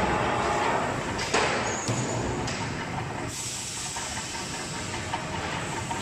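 Turret punch press running: a steady hiss of machine noise with two sharp knocks in the first two seconds, quieter in the second half.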